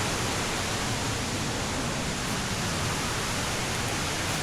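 A large waterfall rushing steadily: an even, unbroken wash of falling water.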